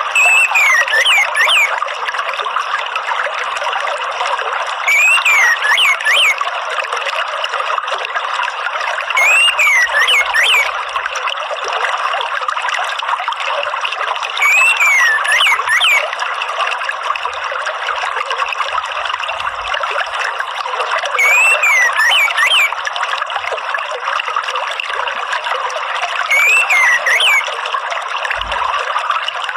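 An orange-headed thrush's short whistled phrase, repeated six times about every five seconds, over a steady sound of running water.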